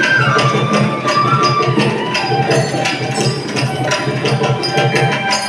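Traditional Indian music for a dance performance: a fast, steady hand-drum beat with a melody line wavering above it.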